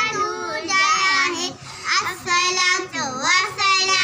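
Young girls singing without accompaniment, a held, wavering melodic line broken by two short breaths between phrases.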